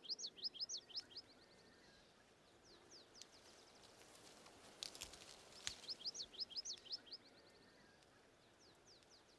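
A songbird singing several short phrases of rapid, high chirps that sweep up and down, over a faint outdoor hiss. A few sharp clicks come about five seconds in.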